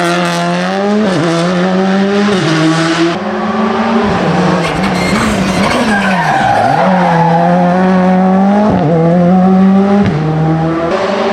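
Rally car engine at high revs, climbing in pitch through the gears with sudden drops at each upshift. About midway the revs fall and waver through a run of downshifts, then it pulls hard again and upshifts twice more near the end.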